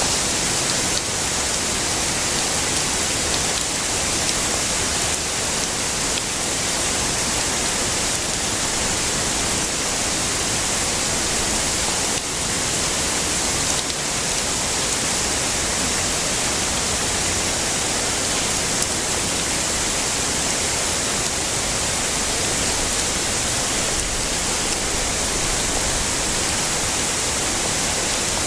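Heavy rain falling steadily: an even, dense hiss, brightest in the treble, that hardly changes throughout.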